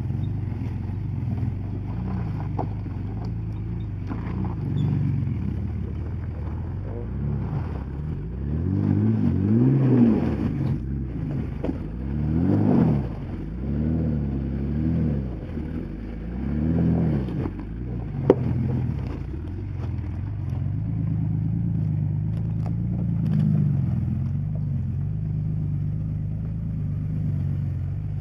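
A 2000 Ford Explorer's engine working under load on a steep rocky climb, revving up and falling back in four surges in the middle, then running steadily. One sharp knock about two-thirds of the way through.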